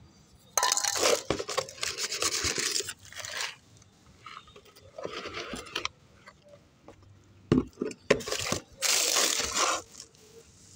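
A steel scoop scraping potting soil out of a plastic tub and pouring it into a clay pot, in three long gritty bursts, with two sharp knocks about two-thirds of the way through.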